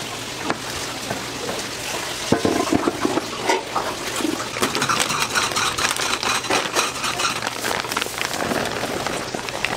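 Kitchen prep clatter: a knife and gloved hands working fried fish cake sheets on a plastic cutting board and into a steel tray. Many small clicks and knocks sound over a steady hiss.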